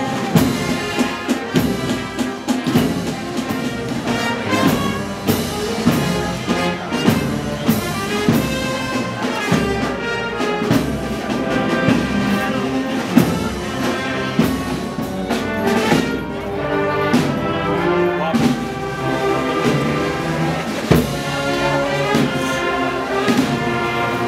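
Brass band playing a processional march: trumpets and trombones holding sustained melody notes over regular drum strikes.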